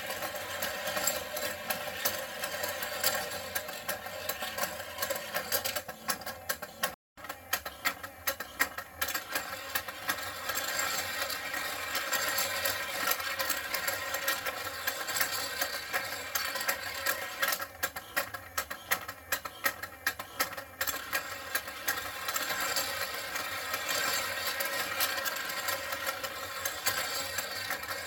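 Battery-powered puppy-race toy running: its small motor and moving plastic stairs make a rapid, continuous clicking and rattling as the plastic puppies climb. The sound drops out for a moment about seven seconds in.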